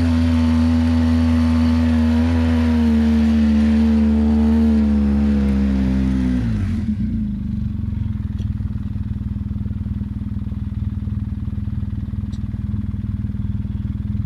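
ATV engine running steadily at speed, its note dipping slightly a couple of times. About six and a half seconds in it drops sharply to a lower, rougher steady note as the quad slows toward idle.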